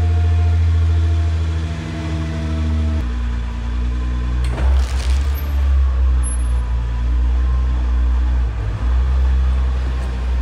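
Nissan GT-R R35's twin-turbo V6 running at low revs as the car is driven slowly onto pads on the workshop floor. The engine note shifts about three seconds in, and a short burst of noise comes about a second and a half later.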